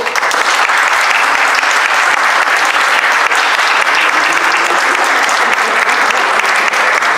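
Applause from a room of children and adults, many hands clapping in a steady, dense patter.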